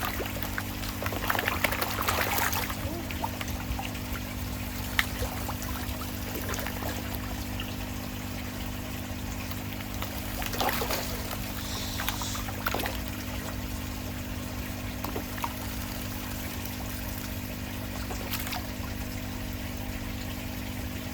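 Koi splashing at the pond surface as they feed, in bursts about a second in, around ten seconds in and near the end, over steadily trickling water and a low steady hum.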